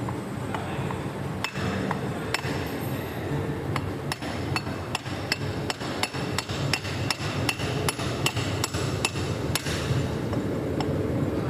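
A hammer striking metal again and again, about two or three blows a second, each blow ringing briefly. The blows start a second or so in and stop near the end, over a steady background rumble.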